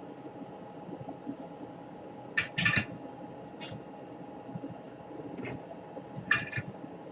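Several short clicks and scrapes of small tools and laptop parts being handled on a workbench, in two clusters about a third and nine-tenths of the way in, over a steady background hum.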